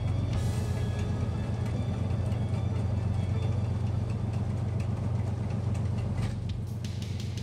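Fishing boat's engine running steadily under way, a constant low drone with water and wake noise over it. A few sharp clicks come near the end.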